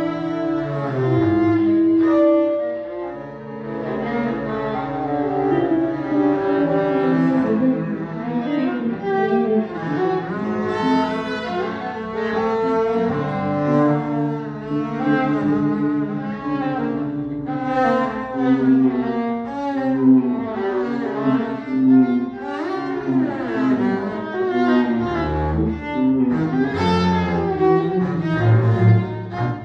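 A trio of viola, double bass and guitar playing together: layered, sustained bowed notes with occasional sliding pitches.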